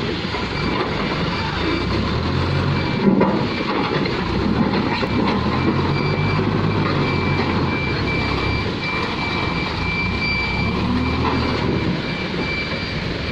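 Diesel engine of a Tata Hitachi backhoe loader running while the machine works, its note swelling and easing several times under load, with one sharp knock about three seconds in.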